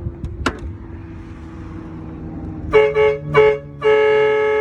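Truck-mounted train horns blowing three short toots and then a longer blast, a chord of several steady tones, starting about two and a half seconds in over the 12-valve Cummins diesel idling.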